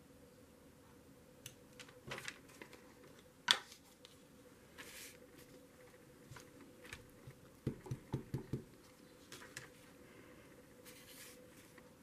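Quiet handling of paper and craft supplies on a tabletop: scattered light clicks and taps, one sharper tap about three and a half seconds in, a quick run of soft knocks around eight seconds, and brief swishes of paper sliding.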